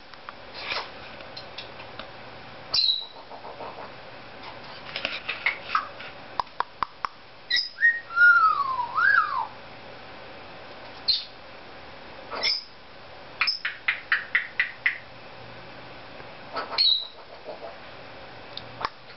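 Cape parrot vocalizing: short sharp squeaks, quick runs of clicks, and one long whistle about eight seconds in that glides down and back up.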